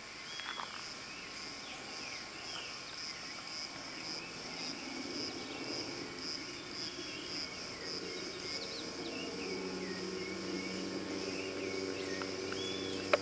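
Steady, high, pulsing insect chorus with birds chirping over it. A low hum grows louder from about a third of the way in, and a sharp click comes at the very end.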